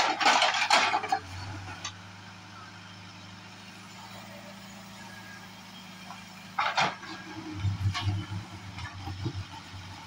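Case backhoe loader's diesel engine running steadily, with loud bursts of scraping and clatter as the backhoe bucket drags through stony soil in the first second and again about seven seconds in. The engine surges in short pulses for a couple of seconds after the second burst as the hydraulics take the load.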